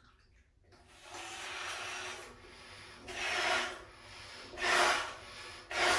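Hands rubbing the parts of a disassembled Tenga masturbation cup: four rubbing strokes, the first and longest about a second in, the others shorter.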